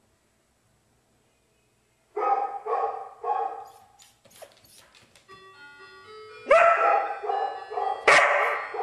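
A dog barking: three barks about two seconds in, then a louder run of barks from about six and a half seconds in. Under the second run a melody of steady electronic chime-like tones plays.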